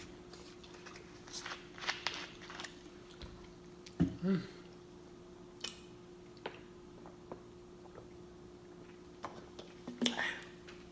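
A person chewing and smacking food close to the microphone, with scattered short wet mouth clicks and a louder mouth sound about four seconds in, over a faint steady hum.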